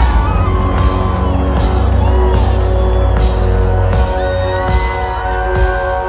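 A live rock band playing loud through a venue's PA, heavy bass and drums on a steady beat, heard from within the crowd. Fans shout and whoop over it in the first couple of seconds, and held keyboard notes come in about four seconds in.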